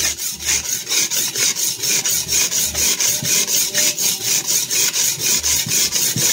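Chinese cleaver blade scraping on the very coarse 100-grit side of a resin-bonded diamond sharpening stone: a gritty rasp repeated in quick, even back-and-forth strokes that stops abruptly at the end. This is coarse grinding to take off steel and bring the worn heel's edge together.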